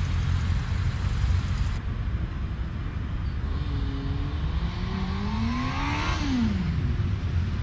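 Motorcycle engine accelerating, its pitch rising steadily from about three seconds in, then dropping sharply as the throttle is shut before hard braking into a stoppie. A steady low rumble runs underneath.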